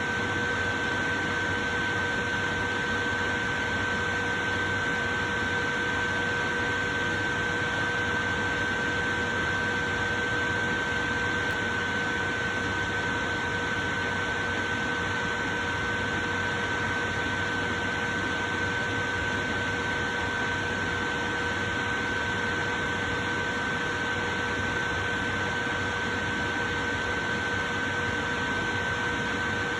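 Portable electric fan running steadily: an even rushing of air with a constant whine on top.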